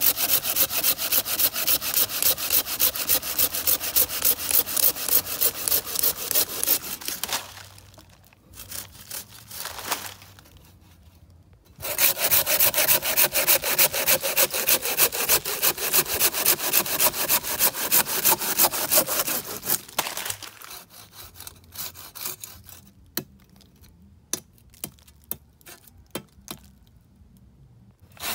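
A saw cutting through wood with fast, even back-and-forth strokes. It stops twice for several seconds; during the second stop there are a few scattered sharp clicks.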